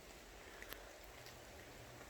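Near silence: faint outdoor night hiss with a single faint tick.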